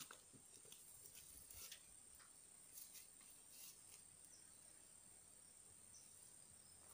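Near silence: a faint, steady, high-pitched insect drone, with a few faint rustles.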